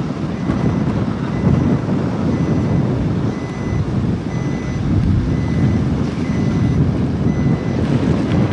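Wind buffeting the microphone over the rumble of a moving vehicle, with a faint high beep repeating about once a second.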